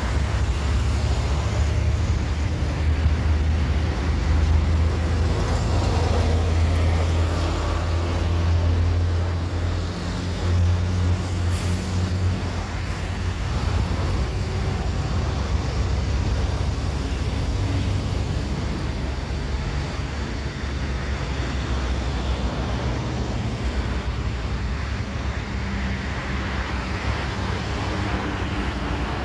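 Road traffic: vehicle engines and tyres, with a deep engine rumble that is strongest for the first ten seconds or so, then eases.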